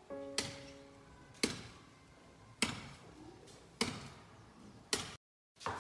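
Five sharp knocks, evenly spaced a little over a second apart, each dying away quickly, followed by a brief cut to dead silence.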